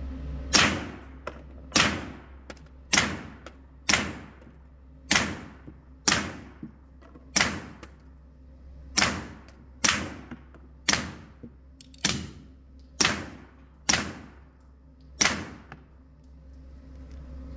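Suppressed Tisas PX9 Gen 3 9mm pistol firing fourteen shots at a slow, steady pace of about one per second. Each shot is a sharp crack with a short echo off the indoor range walls.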